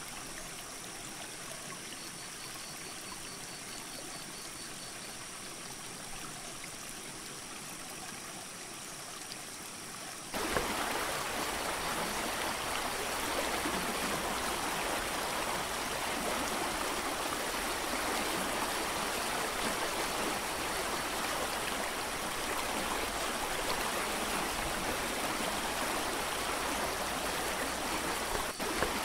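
Mountain creek rushing over boulders in a small waterfall: a steady noise of running water, fainter at first, then suddenly much louder about ten seconds in.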